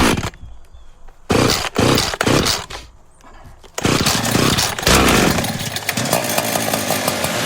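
Chainsaw engine revving in several short bursts, then running continuously from about four seconds in.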